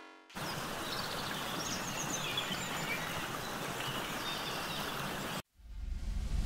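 Jungle ambience: a steady hiss of background noise with faint, scattered bird chirps, cutting off abruptly about five seconds in. A low rumble then starts to swell near the end.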